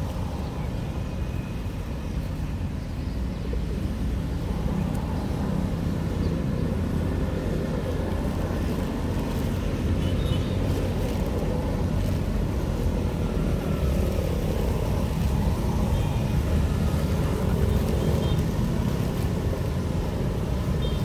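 Steady low rumble of street traffic, with a few faint, short high chirps about halfway through and again near the end.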